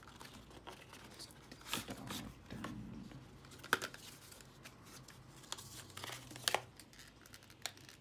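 Retail packaging of an M.2 SSD being opened by hand: cardboard and clear plastic rustling and crinkling, with a few sharp clicks.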